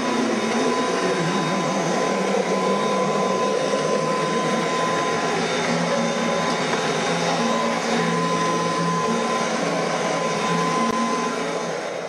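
Vintage upright vacuum cleaner running steadily over carpet, its motor giving a continuous rushing noise with a steady whine on top.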